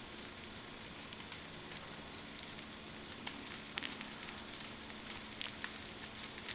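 Large brush-pile bonfire of felled trees burning, faint, with a steady hiss and scattered sharp crackles and pops; a few louder snaps come around the middle and later.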